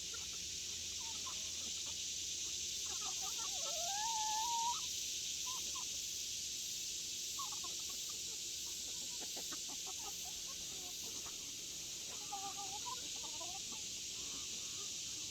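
Hens clucking softly and intermittently while they feed on scratch grain, over a steady high hiss.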